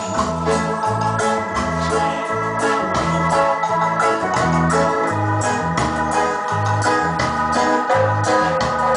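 Dance music with sustained electronic keyboard chords over a bass line that steps from note to note, and a steady beat.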